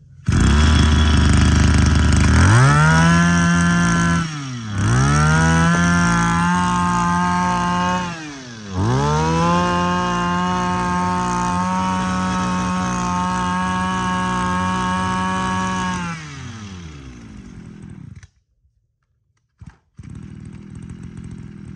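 Small two-stroke engine of an Echo 26cc brush cutter revved from idle to full throttle three times, each rev held for several seconds with the pitch dropping back between them. After the last rev it winds down over about two seconds and cuts off. After a brief silence near the end, a fainter low steady running sound follows.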